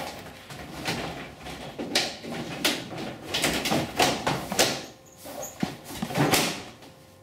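Vinyl siding panel being slid and pushed into place, the plastic scraping and rustling against the neighbouring courses in irregular strokes, with a few sharp clicks as it is pressed home.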